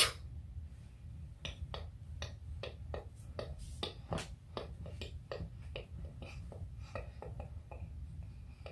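A string of soft, irregular clicks and taps of phone handling, fingers and hands moving on and near the phone, over a low steady rumble.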